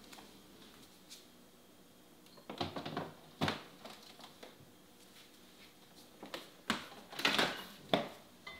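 After a couple of quiet seconds, a refrigerator is opened and loaded: short knocks and clunks as items are set on the shelves, then the fridge door is shut near the end.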